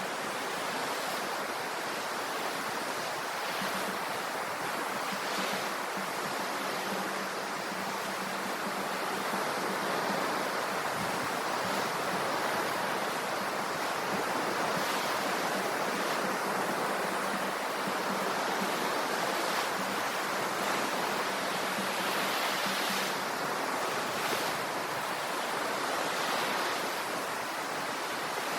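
Ocean waves washing onto the shore in a steady, unbroken surf.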